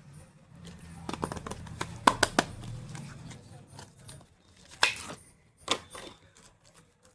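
Makeup kit being handled: a quick run of sharp clicks and taps, then two louder single clicks a second apart.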